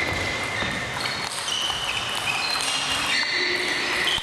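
Table tennis balls clicking off tables and bats in a large hall, rallies at several tables overlapping into an irregular patter, with short high tones over it.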